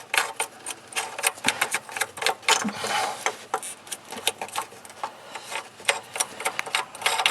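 Faucet mounting nut being spun onto the faucet's threaded shank under a sink: a run of quick, irregular clicks and rattles from the nut on the threads.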